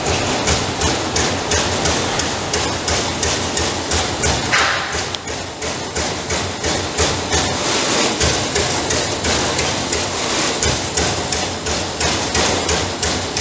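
Trumpf 200 Rotation CNC punch press punching sheet metal in rapid, regular strokes, about three a second. A short hiss comes about four and a half seconds in.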